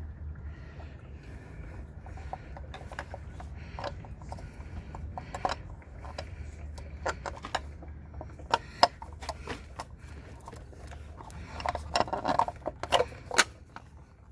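Oil filter cartridge and housing cap being handled and fitted into the filter housing on a Mercedes C300's four-cylinder turbo engine: scattered light clicks and scrapes, with a brief burst of louder knocks and rattles near the end.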